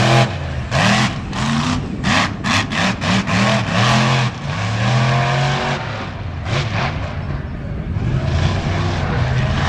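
Monster truck engine revving hard in a rapid series of throttle blips, about eight in the first four seconds, each pitch rising and falling, then running at a steadier, lower note as the truck drives on.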